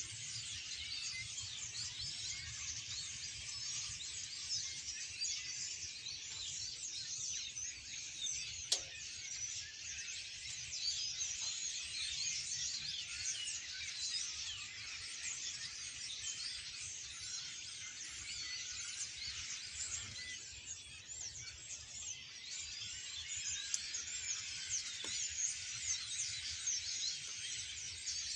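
A huge flock of small birds calling all at once: a steady, dense din of squeaky, high-pitched chirps and chatter with no pauses. A single sharp click about nine seconds in.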